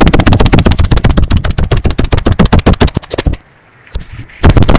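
A loud, rapid rattle of sharp clicks, about a dozen a second, stopping about three seconds in, with another short burst near the end.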